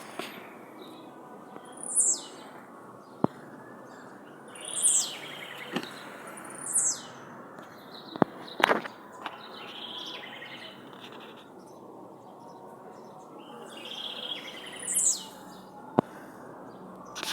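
Blue-black grassquit (tizil) singing: four short, high notes that fall steeply in pitch, spaced a few seconds apart, with softer twittering between them. A few sharp clicks are heard over a steady background hiss.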